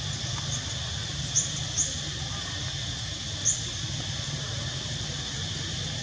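A few short, high-pitched squeaks, three of them clear, over a steady outdoor hiss and low hum.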